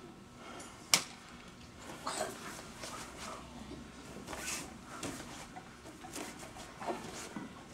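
Taekwondo uniform (dobok) swishing and snapping with the strikes and turns of a form, in short soft bursts, with one sharp crack about a second in.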